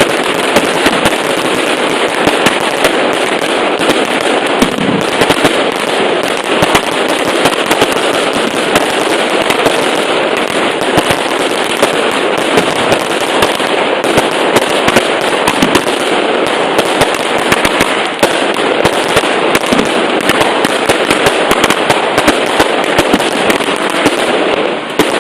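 Fireworks and firecrackers going off in a dense, unbroken barrage of rapid sharp cracks, loud and steady throughout.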